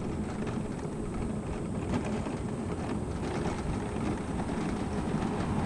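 Electric mobility scooter rolling along cracked asphalt: a steady rumble of its small tyres and drive motor.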